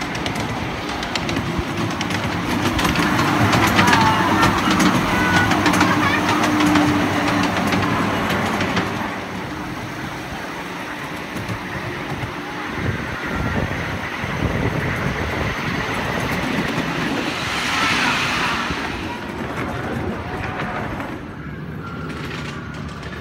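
Miniature railway train running along its track, a steady rumble and rattle, with people's voices mixed in.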